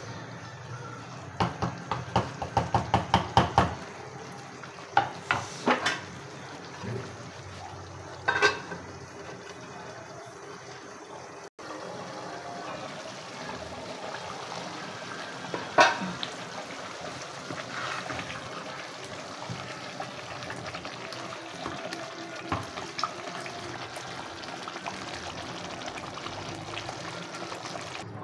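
Wooden spatula stirring a thick creamy chicken curry in a metal karahi, knocking against the pan in a quick run of strikes about two seconds in, then a few single knocks. Later the cream sauce simmers with steady bubbling and small pops, broken by one sharp knock of the spatula.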